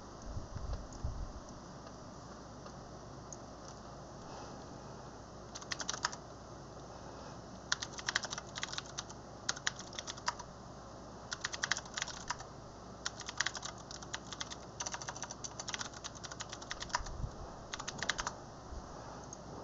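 Computer keyboard typing in bursts of quick keystrokes, starting about six seconds in, over a faint steady low hum.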